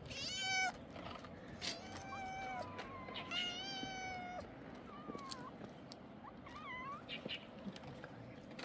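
Kittens meowing again and again: about five meows, some long and drawn out, others short and wavering, with a few short clicks between them.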